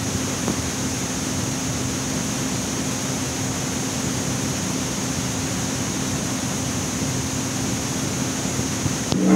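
Steady hiss with a constant low hum from an old cassette tape recording of a live rock band, in the gap between songs. Just before the end the band's guitar comes back in.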